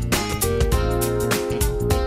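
Instrumental background music with a steady beat and sustained notes.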